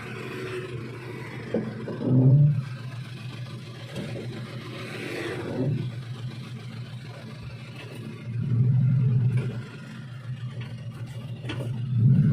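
Suzuki Espass minivan engine running at idle and revved up briefly three times: about two seconds in, for about a second in the later part, and again near the end. The van has a problem with the engine stalling.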